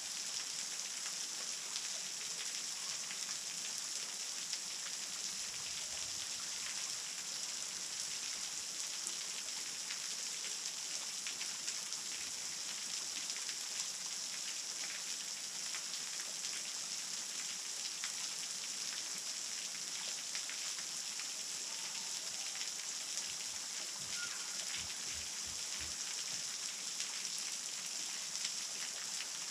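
Waterfall at low flow: a thin stream of water spilling and splashing onto rock, a steady hiss.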